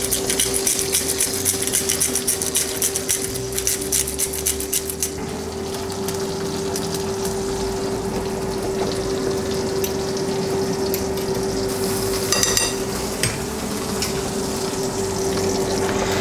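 Salsa hitting a hot pan of onions and sizzling hard, with dense crackling for the first few seconds that settles into a steadier frying hiss as a fork stirs it. A metal clink rings out about twelve seconds in, over a steady hum.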